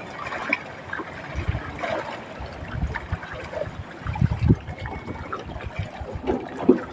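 Water splashing and trickling, with irregular low knocks and thumps scattered through it, the strongest a little past the middle and near the end.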